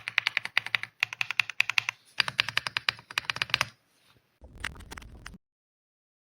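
Rapid typing on an RK Royal Kludge R75 gasket-mounted mechanical keyboard: fast runs of keystroke clicks in bursts that stop about three and a half seconds in. A brief low rumble follows, then the sound cuts off abruptly.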